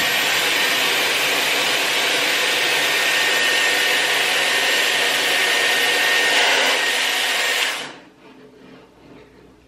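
Dyson Airwrap curling barrel blowing hot air at its highest setting while curling a lock of hair: a steady rush of air with a thin high whine from its motor, cutting off suddenly about eight seconds in.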